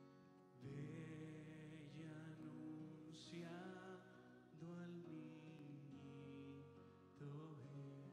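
Slow Christmas carol sung in Spanish over steady held instrumental chords. Sung phrases come in about half a second, five seconds and seven seconds in.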